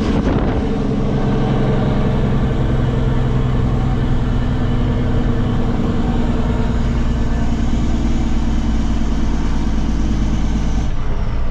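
Fully loaded farm truck's diesel engine running steadily, heard from inside the cab while descending a steep hill, its note changing near the end.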